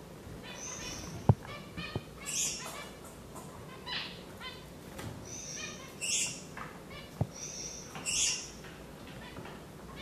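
Gouldian finches calling in a quick run of short chirps, with hissing notes every couple of seconds. Three sharp taps cut in, the loudest just over a second in, another at about two seconds and one near seven seconds.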